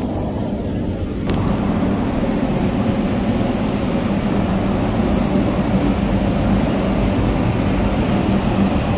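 Steady machine hum and rumble of a spray paint booth's ventilation running, with a low steady tone. About a second in there is a knock, and the hum turns louder and clearer.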